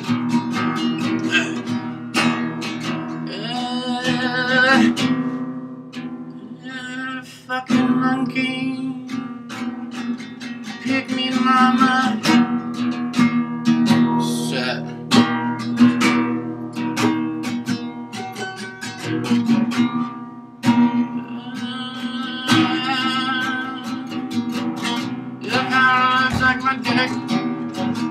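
Cigar box guitar played in a blues style: plucked notes with sharp attacks over a steady low drone.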